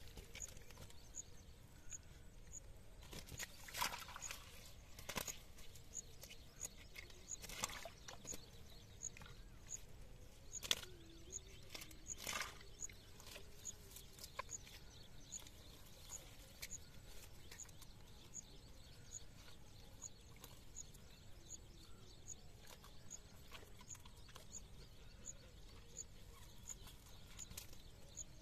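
Nylon cast net rustling and crackling against dry grass as it is handled and fish are picked out of it, with a few louder rustles in the first half. A faint high chirp repeats steadily about every three quarters of a second.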